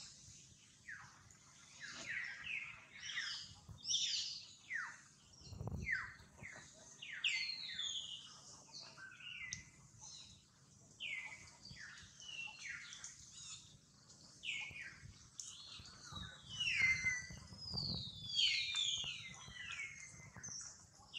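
Many quick, high chirps sweeping downward in pitch, several often overlapping at different pitches: small birds calling.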